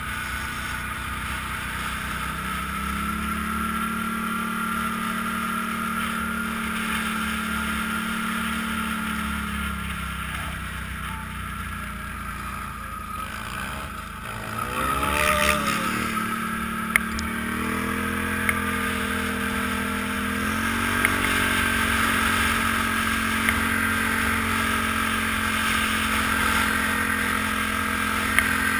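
ATV engine running under way, its pitch climbing about three seconds in and sagging back near ten seconds. About halfway through it dips, then revs back up and settles at a higher steady pitch, over a steady rushing noise with a few sharp knocks near the end.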